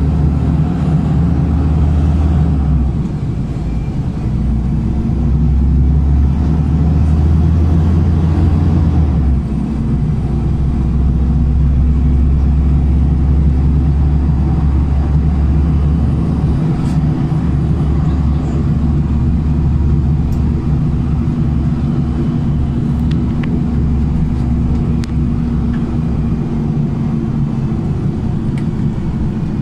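Low, steady drone of a LiAZ 5292.67 city bus's YaMZ-53624 engine, heard from inside the moving bus. The pitch climbs slowly, drops suddenly about nine seconds in as the ZF automatic gearbox shifts up, then holds steady.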